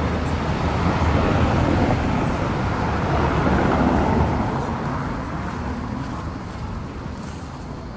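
A car driving past close by on the paved street, its tyre and engine noise loud for the first half and then fading away over the last few seconds.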